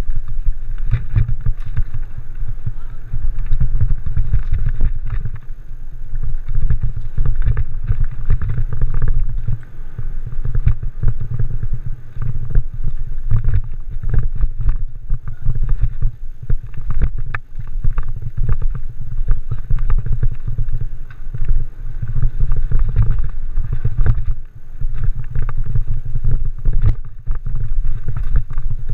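A Norco Torrent mountain bike ridden at speed on dirt singletrack: a steady deep rumble from wind on the camera microphone and tyres on the trail, with frequent clicks and rattles from the bike over bumps.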